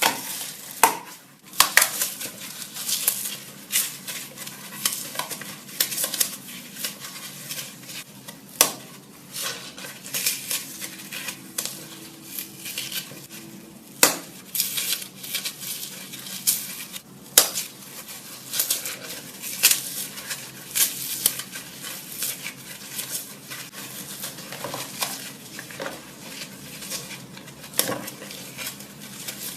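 Dry floral foam being crushed, giving a dense, continuous crunching and crackling with a few louder sharp snaps as pieces break.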